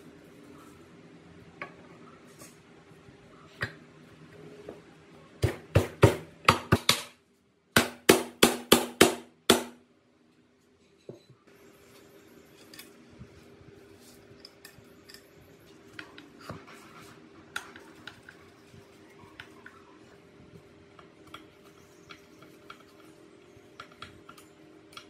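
Two quick runs of sharp metal strikes, about five and then six, as a hammer taps the two aluminium crankcase halves of a Minsk 125cc engine together over the crankshaft. Around them, quieter clinks of parts being handled over a faint steady hum.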